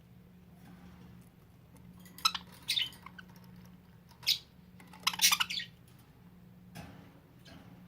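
Pet budgerigars giving a few short bursts of chirps and squawks, about two seconds in, near the middle and just past halfway.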